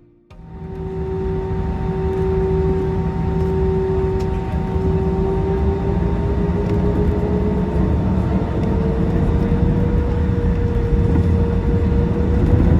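Airbus A320 jet engines heard from inside the cabin over a deep rumble, with a whine that slowly rises in pitch as the sound grows louder: the engines spooling up.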